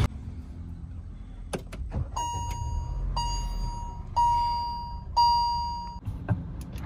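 Car dashboard warning chime beeping four times, about once a second, each beep a steady high tone that fades, as the ignition is switched on and the instrument cluster runs its system check. A few sharp clicks come before the chime and again near the end.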